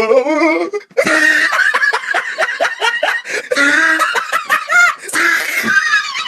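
Loud laughter, in rapid bursts.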